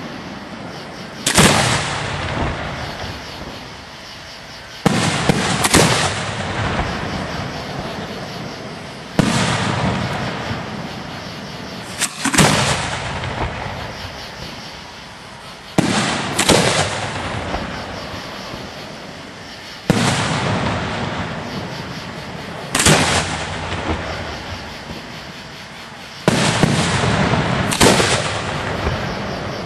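Aerial firework shells bursting one after another, about every three to four seconds, sometimes two close together. Each is a sharp bang followed by a long, fading rumble and crackle.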